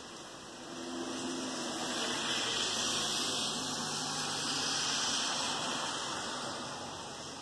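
A car driving past on a rain-soaked road, its tyres hissing through the water; the hiss swells up about a second in and fades near the end, over a steady hiss of rain.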